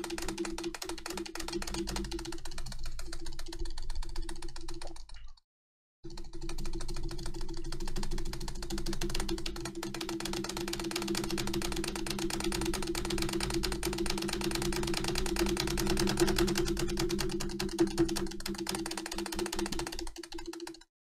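Acer keyboard spacebar pressed very rapidly and continuously, a fast run of plastic key clicks at about seven presses a second over a steady hum. The clicking breaks off into silence for under a second about five seconds in, and again at the very end.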